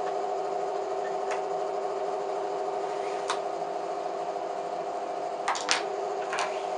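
Homemade spot welder built from a microwave oven transformer humming steadily, with a few sharp crackles and snaps as the steel wire is held too long and melts.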